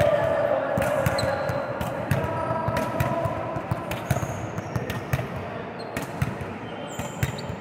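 Volleyballs being hit and bouncing on a gym court: many irregular sharp thuds, overlapping, with short high squeaks between them.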